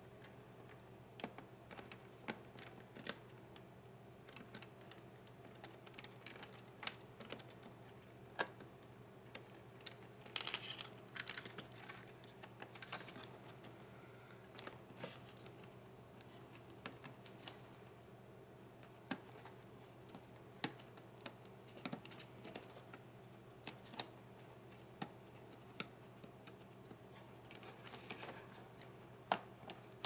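Faint, scattered small clicks and taps of fingers unclipping plastic cable connectors and handling parts inside an opened laptop, with a short burst of rustling about a third of the way in, over a steady low hum.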